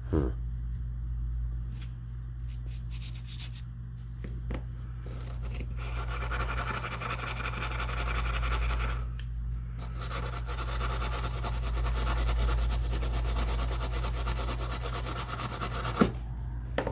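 Metal parts being worked into a side-by-side shotgun's action by hand: a few light clicks, then two long stretches of steady rubbing and scraping, ending in one sharp click near the end. A steady low hum runs underneath.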